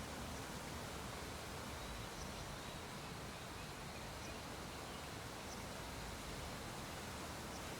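Faint steady hiss of background noise, with a few faint short high chirps scattered through it.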